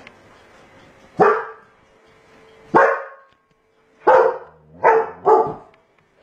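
German Shepherd barking in sharp single barks: one about a second in, another about a second and a half later, then a quick run of three near the end. These are wary alarm barks at a stuffed toy tiger the dog takes for an intruder.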